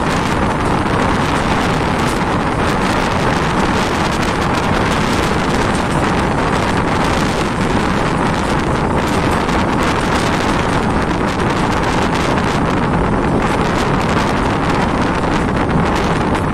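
Steady rush of wind buffeting the microphone together with the rumble of a passenger train's coaches running at speed on the track, heard from an open door of a moving coach.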